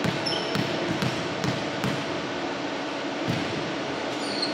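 A volleyball bounced on a hardwood gym floor, a run of thumps a little over two a second, then a pause and one more thump about three seconds in.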